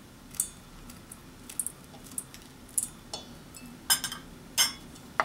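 Kitchen scissors snipping a red chili pepper over a stainless steel mixing bowl: a scattered series of short, sharp snips and clinks, the two loudest near the end.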